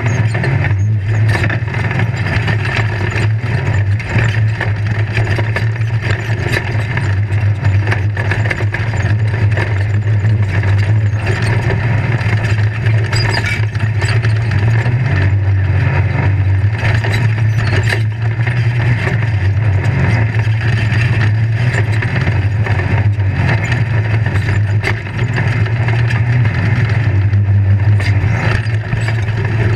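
Off-road race vehicle driven across rough desert terrain, heard from inside the caged cab: a steady, low engine note under constant rattling and knocking from the chassis and the rough ground.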